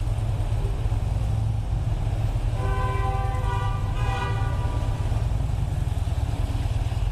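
A 2009 Harley-Davidson Fat Bob's V-twin engine running steadily while riding, a low rumble throughout. About two and a half seconds in, a vehicle horn sounds for roughly two seconds.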